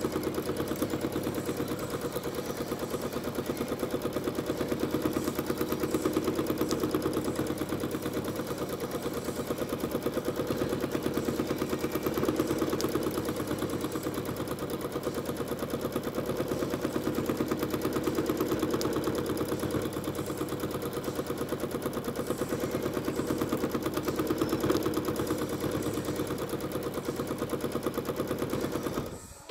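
Janome Skyline S9 sewing machine stitching through a quilt at a fast, even rate: a rapid, steady needle chatter. It stops abruptly just before the end.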